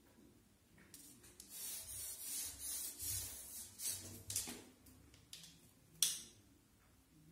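Kittens scrabbling and scuffling as they leap at the wall and land on the tile floor, a rough scratchy rubbing sound in bursts for a few seconds. One sharp tap about six seconds in.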